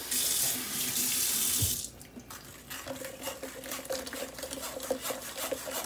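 Kitchen faucet running into a stainless steel sink for about two seconds, then shut off. A rapid run of short scraping strokes follows as the berry pulp is worked through a wire mesh strainer.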